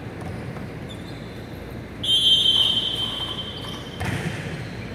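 A referee's whistle blown in one steady blast of about a second and a half, the signal to serve, followed about four seconds in by a dull thud as the volleyball is struck.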